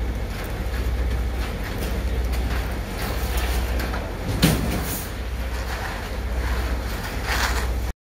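Concrete mixer truck's diesel engine running with a steady, pulsing low rumble while wet concrete is raked and scraped, with one sharp knock about four and a half seconds in. The sound cuts off suddenly just before the end.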